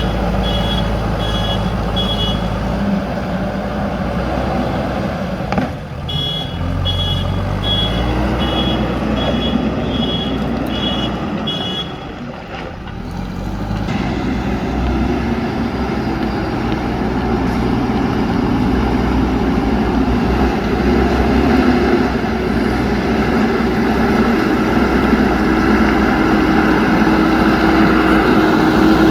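JCB backhoe loader's diesel engine running under load while it works, with its reversing alarm beeping about one and a half times a second for the first couple of seconds and again from about six to twelve seconds in. The engine grows louder through the second half.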